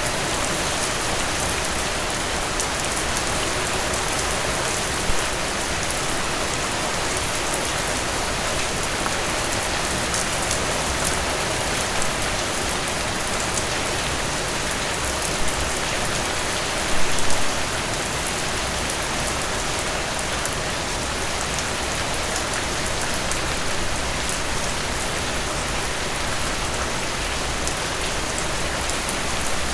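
Steady rain falling on a surface, an even hiss full of fine drop ticks. A few brief louder taps stand out: one about five seconds in, another at about fifteen seconds, and a short cluster at about seventeen seconds.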